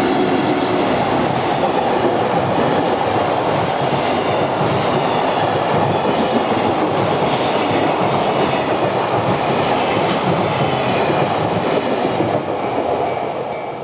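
A train passing over a level crossing on the Tohoku Main Line, wheels running on the rails. The noise begins to fade near the end as the train moves away.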